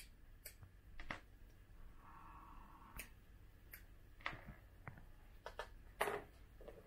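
Scattered light clicks of small metal bag-frame parts and screws being handled and set down on a wooden workbench, about eight in all, the loudest about six seconds in. A brief faint scrape about two seconds in.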